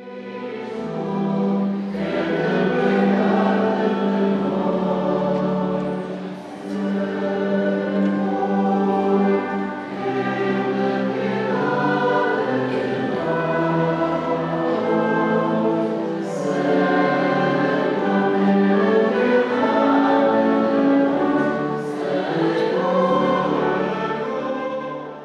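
Mixed choir singing a hymn in phrases, accompanied by a wind band whose clarinets and tuba carry the melody and low bass notes.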